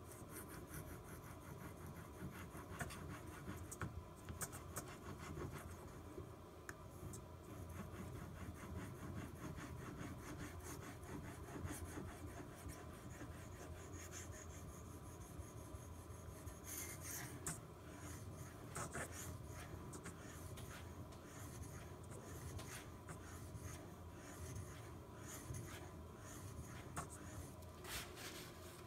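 Carbon steel pocketknife blade (1095 steel) drawn in repeated strokes across a Shapton Glass whetstone, a soft continuous scraping and rasping.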